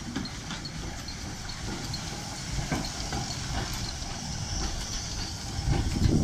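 1916 Hudswell Clarke saddle tank steam locomotive "Illingworth" running slowly past at close range, steam hissing and scattered wheel clicks on the rails. It grows louder as it draws level near the end.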